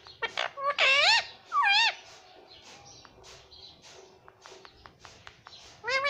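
Indian ringneck parakeet giving three loud calls in the first two seconds, each bending up and down in pitch. Then a run of faint clicks, its beak tapping the smartphone screen it stands on, and another call starts at the very end.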